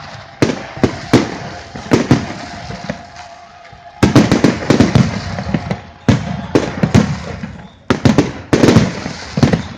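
Fireworks display: shells bursting with many sharp bangs and crackle, building into dense barrages about four seconds in and again near the end.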